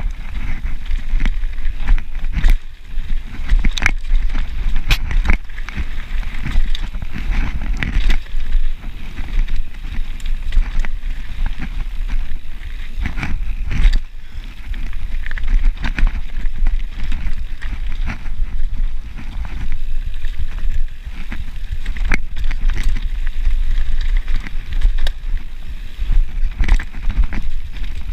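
Mountain bike running fast downhill on a dirt singletrack: a steady wind rumble on the microphone with tyres rolling on dirt, and the bike rattling with frequent sharp clacks as it hits roots and bumps.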